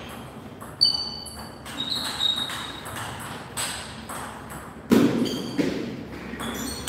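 Table tennis rally: the celluloid-type plastic ball clicking off bats and the table in an irregular series of sharp knocks, a few with a short ringing ping, and a heavier thump about five seconds in.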